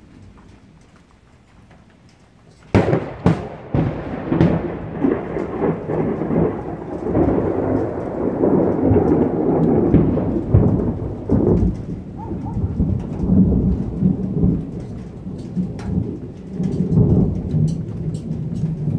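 Close thunderclap: a sudden sharp crack about three seconds in, followed by a long, loud rolling rumble that carries on with uneven swells through the rest. Faint rain can be heard before the crack.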